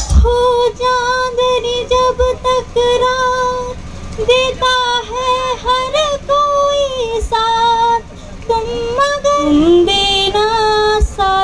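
A young woman singing solo into a microphone, unaccompanied, in a slow melody of long held notes with vibrato.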